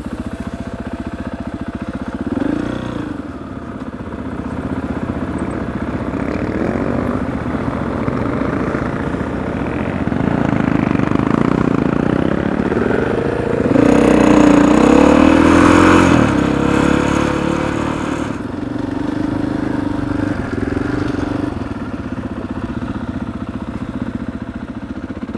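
KTM 500 EXC-F enduro bike's single-cylinder four-stroke engine running under way off-road, revs rising and falling with the throttle. The revving is loudest about halfway through.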